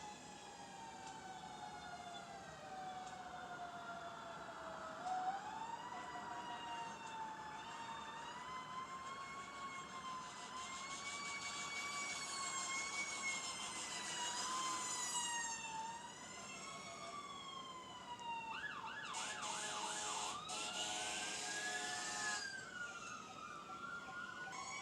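Fire truck electronic sirens wailing in slow rising and falling sweeps, switching to a rapid yelp a few seconds before the end, with a harsh noisy blast overlapping the yelp for a few seconds.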